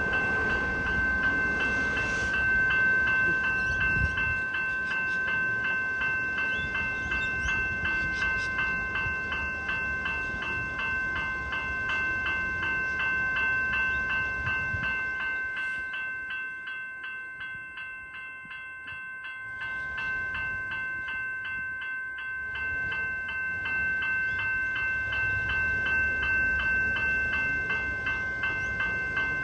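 General Signals electronic level-crossing bell ringing in fast, even strokes as the crossing is active for a train. Beneath it runs the low rumble of rail traffic, fading for a few seconds around the middle.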